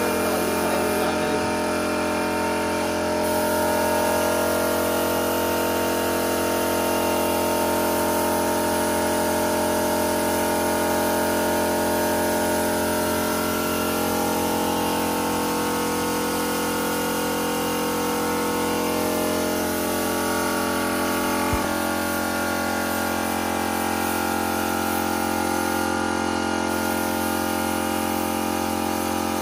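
Air compressor running steadily with an even hum, feeding a spray gun that hisses as black paint is sprayed onto a car door.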